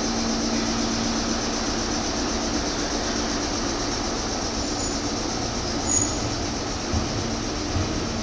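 Meitetsu express train running through at speed: a steady rush of wheel and running noise with a low hum that fades out in the first few seconds, and a few short knocks in the last couple of seconds.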